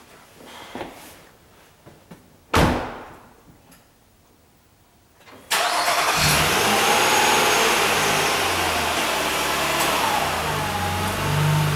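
A car door shuts with a single loud thump about two and a half seconds in. About three seconds later the car's engine is started and settles into a steady idle.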